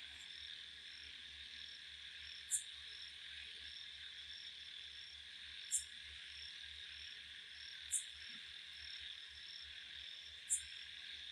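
Crickets chirring steadily in the background, with four faint, sharp high ticks spaced two to three seconds apart.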